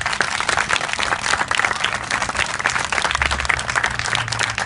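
A large crowd of children applauding: dense, steady clapping.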